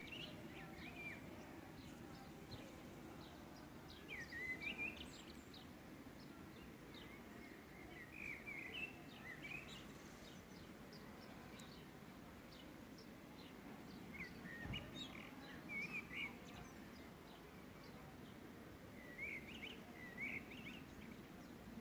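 Birds chirping outdoors in short bursts of quick, high twittering notes every few seconds, over a steady low background noise.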